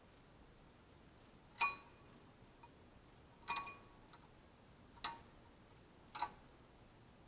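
Four sharp metallic clinks, one to two seconds apart, each with a short ring: small metal parts being handled and set in place.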